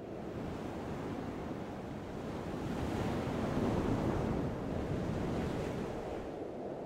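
Breaking sea waves and wind, a steady rush of noise that grows louder about three seconds in and eases off toward the end.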